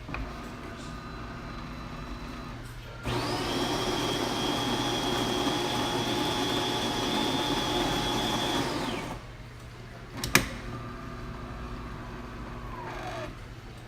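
DeLonghi Magnifica bean-to-cup espresso machine grinding beans in its built-in grinder for about six seconds, a loud steady grinding whir. A sharp clack follows about a second later, then a quieter motor hum that drops in pitch near the end as the machine prepares the shot.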